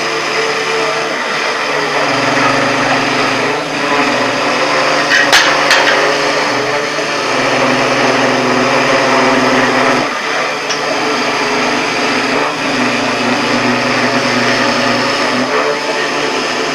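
Homemade CNC machine cutting: its spindle motor running with a steady hiss and whine, and low hum tones that step up and down in pitch every few seconds as the machine moves. A sharp click about five seconds in.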